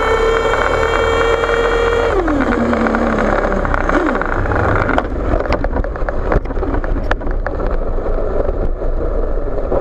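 HPI Savage XL RC monster truck's nitro engine running at high revs. About two seconds in the throttle closes and the high whine falls to a low idle, with a short blip about four seconds in. After that the truck rolls with rough running noise and sharp clicks and knocks.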